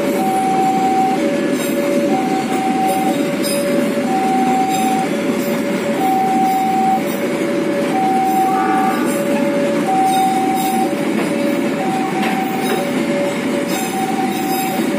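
Freight train of fuel tank wagons rolling past, a steady rumble of wheels on rail with faint clicks and a short squeal about eight and a half seconds in. Over it an electronic two-tone warning signal alternates a high and a low note, about one note a second.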